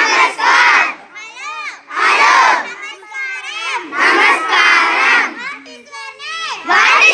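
A group of schoolchildren chanting short phrases together, likely Telugu phrases being practised, in loud unison bursts about every two seconds, with quieter voices in the gaps between.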